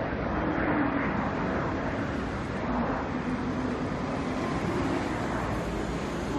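UPS Boeing 747 freighter's four jet engines at takeoff power, a steady rumbling roar as the plane climbs away, with a faint wavering hum underneath.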